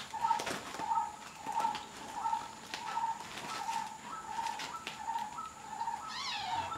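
Kittens scuffling on a plastic feed sack, with short rustles and scratches, and one kitten giving a single falling mew about six seconds in. Behind it, a bird calls steadily, one short note about one and a half times a second.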